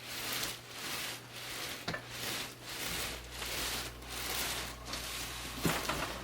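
Cardboard and packing rubbing and scraping in repeated swishes, under a second apart, as a large statue box is worked open by hand, with a couple of light knocks.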